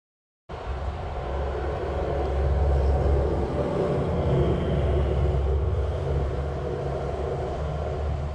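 Steady low mechanical rumble with a deep hum, starting suddenly about half a second in.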